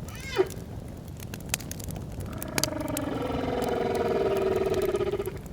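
Campfire crackling with whale calls over it: a short falling call just after the start, then one long, low moan from about two seconds in until near the end.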